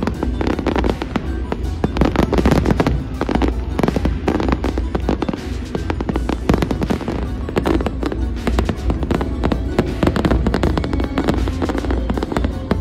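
Fireworks bursting and crackling in rapid, overlapping succession, with music playing underneath.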